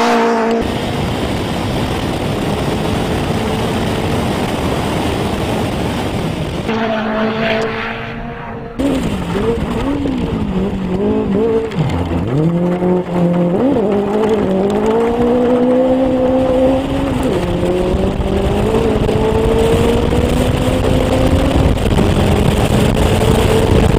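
Turbocharged Ford Fiesta rally car engine at full throttle, its pitch climbing and dropping repeatedly as it shifts gears and lifts for corners. It is heard from an onboard camera, with a few abrupt cuts between shots.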